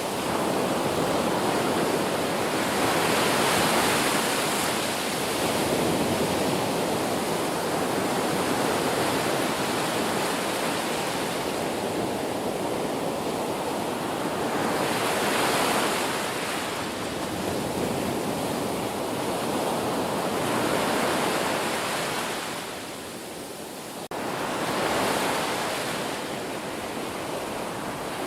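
Ocean waves breaking and washing on the shore: a continuous rush of surf that swells as each wave breaks, with several louder surges some seconds apart.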